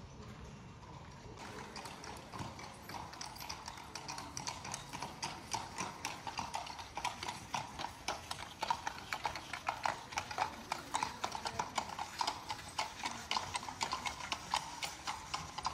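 Hooves of a pair of horses pulling an open carriage, clip-clopping on cobblestones in a steady walking rhythm. It begins about a second in and grows louder through the first half.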